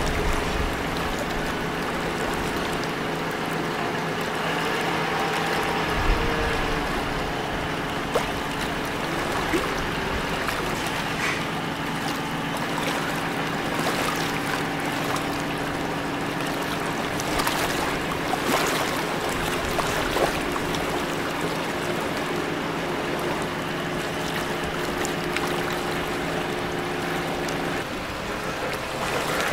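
Steady hum of marine diesel engines from a tugboat working a container ship, several fixed tones over a wash of water and wind noise. The hum changes and falls away shortly before the end.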